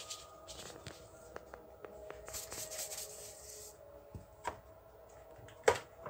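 Quiet kitchen handling: a brief rustling hiss about two and a half seconds in, then a few sharp knocks of a drinking glass being moved on a granite worktop, the loudest near the end.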